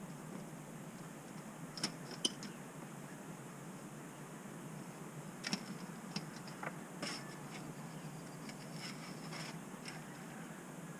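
A few scattered light clicks and ticks over a steady low background hum.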